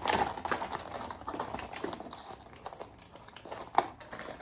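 Packaging being handled and opened: plastic packs crinkling and rustling in irregular short crackles, with a sharp click near the end.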